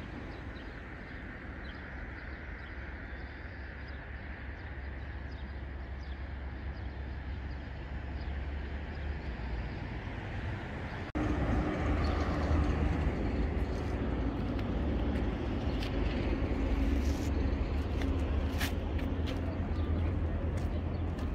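Outdoor ambience with a steady low rumble of wind on the microphone, growing louder about halfway through, and a few sharp ticks near the end.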